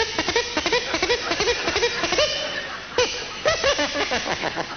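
A voice laughing in quick runs of short pitched syllables, about four to five a second, in two bouts.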